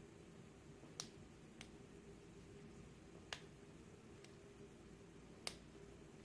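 Small sharp clicks of a lock pick and tension tool working the pin stack of an American 1100 padlock: four clicks spread over several seconds, the last the loudest, against near silence.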